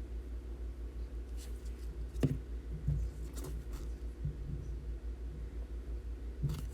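Trading cards being handled and sorted on a table: a few light taps and clicks about two, three and a half and six and a half seconds in, over a steady low hum.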